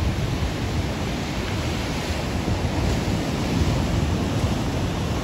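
Ocean surf breaking and washing up the beach, a steady rush that swells slightly a few seconds in, with wind blowing on the microphone.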